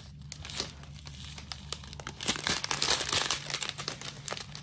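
Clear plastic zip-lock bags full of round resin diamond-painting drills crinkling as they are handled and turned over: irregular crackles that get busier and louder about halfway through.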